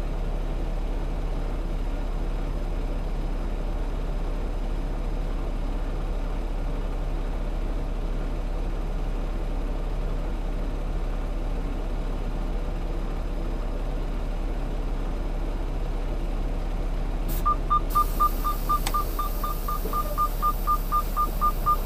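Semi truck's diesel engine idling steadily, heard from inside the cab. About seventeen seconds in there is a click, and a rapid, high electronic beeping starts, several beeps a second, over a rise in hiss.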